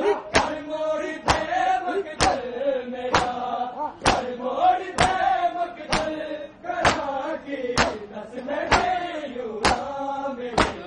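A crowd of Shia mourners chanting a noha lament together, with hands striking chests in unison, about one sharp beat a second, keeping time for the chant.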